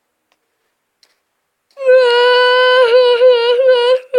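Silence, then about two seconds in a high voice holds a long sung note, steady at first, then wavering and breaking into short notes.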